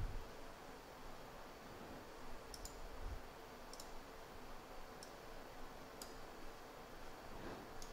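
Computer mouse button clicking: about five light, sharp clicks roughly a second apart, a couple of them doubled, over a faint steady hum.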